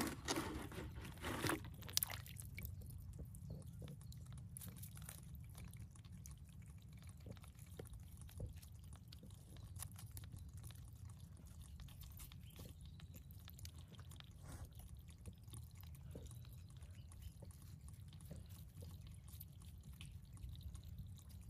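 Faint wet handling sounds as hands lift a mud crab out of a shallow pool on mud and tie its claws with cord: small drips, squelches and scattered clicks over a low steady rumble, with a couple of louder knocks in the first two seconds.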